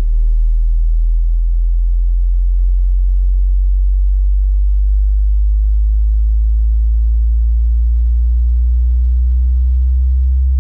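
Low sine-wave test tone from a tone sweep, played through Kicker Comp R 10-inch car subwoofers: a loud, deep, steady hum. A second, slightly higher tone grows louder after about four seconds.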